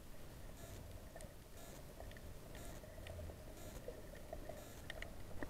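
Faint underwater ambience heard through a waterproof camera housing: scattered soft clicks and crackles over a low rumble.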